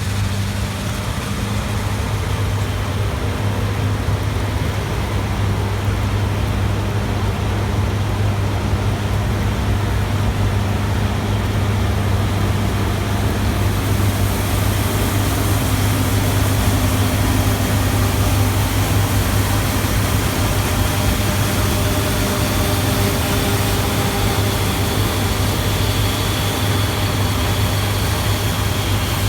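Heavy engine running steadily with a deep, constant hum. From about halfway through the hiss of machinery grows, and a faint high whine comes in toward the end.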